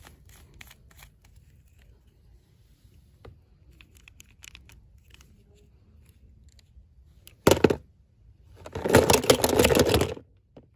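Toy packaging being handled and torn open: faint crinkles and clicks, then a short loud rip about seven and a half seconds in and a longer tearing burst of about a second and a half near the end.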